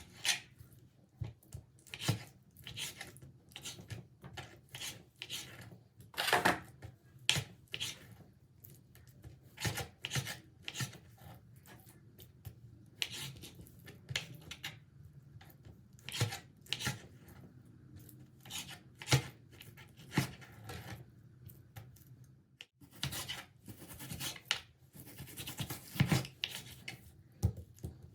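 A Solingen kitchen knife cutting raw chicken on a cutting board: irregular sharp knocks of the blade reaching the board, roughly one or two a second, with slicing and scraping between them.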